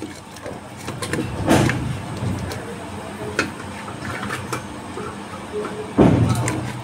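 Cut okra pieces being set down by hand on the bottom of a stainless-steel pressure cooker: light taps and knocks on the metal, with a louder thump about a second and a half in and another near the end, over a low steady hum.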